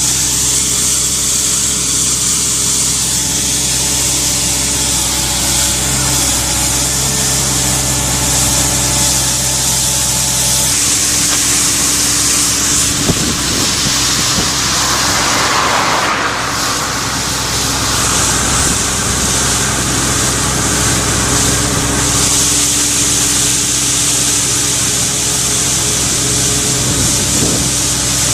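Wheeled excavator's diesel engine running steadily while its hydraulic rotary sweeper brush spins against asphalt, a constant hiss of bristles over the engine hum. The mix shifts a little about a third of the way in and again about halfway.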